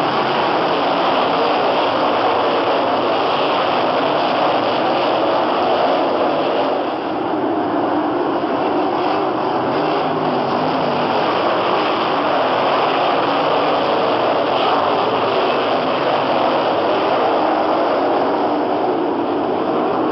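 Non-winged dirt-track sprint cars racing on a dirt oval, their V8 engines running loud and continuous at racing speed, dipping briefly about seven seconds in.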